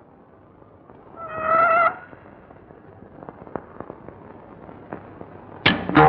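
Faint crackle and scattered clicks, with a short, high, wavering tone about a second in that lasts under a second. Near the end, electric guitar music comes in with a run of loud plucked notes.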